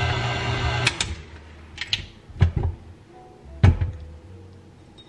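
KitchenAid Classic tilt-head stand mixer running with its dough hook kneading bread dough, switched off just under a second in. Then a few clicks and knocks as the mixer head is unlocked and tilted back, the loudest a little past halfway.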